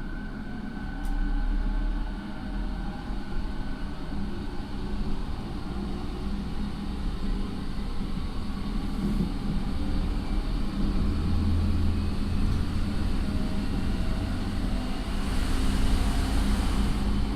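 Inside a JR 209 series electric train car with a Mitsubishi IGBT inverter and MT68 traction motors, running: a steady rumble of wheels on rail with faint motor and inverter tones, some slowly rising in pitch. It grows louder toward the end.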